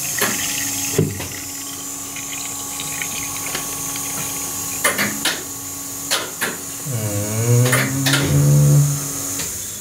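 Small electric filling pump humming steadily as it draws liquid from a funnel into the heating system, over a hiss of pouring liquid and with a few sharp knocks. The hum stops shortly before the end.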